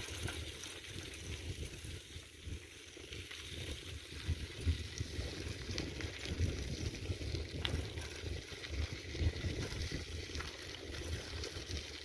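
Bicycle rolling along a dirt road, with wind rumbling on the phone's microphone and an occasional faint click.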